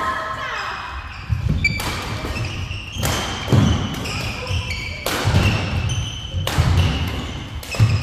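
Badminton doubles rally: rackets striking the shuttlecock with sharp cracks about every one to two seconds, about six hits in all. Between hits, shoes squeak briefly on the court floor and feet thud.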